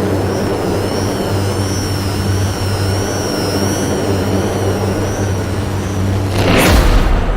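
Synthesized dark cinematic drone: a steady low hum with thin, wavering high tones above it in a noisy haze. About six and a half seconds in, a loud whoosh with a deep low end swells up and is the loudest moment.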